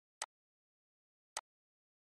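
Two sharp computer mouse clicks, a little over a second apart, against dead silence.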